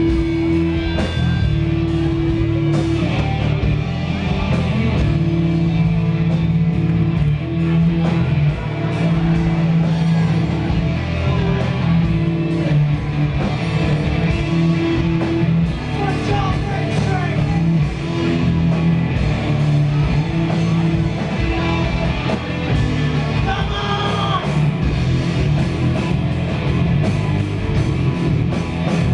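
Live hard rock band playing loud and without a break: distorted electric guitars, bass guitar and drum kit through a bar PA, with a singer.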